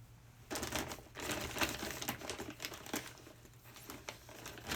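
Plastic water bottles crinkling and clicking as they are handled and set into the fridge, in irregular bursts starting about half a second in.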